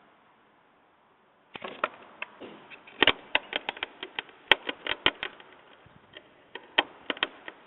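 Squirrel cracking open and chewing peanuts in their shells: sharp, irregular crackling clicks, several a second with short pauses, starting about one and a half seconds in.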